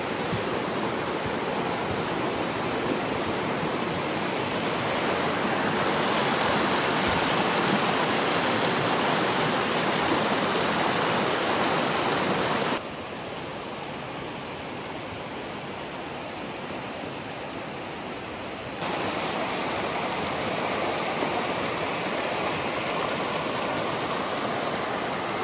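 Shallow mountain stream rushing over rocks, a steady even rush of water. It drops in level about thirteen seconds in and comes back up some six seconds later.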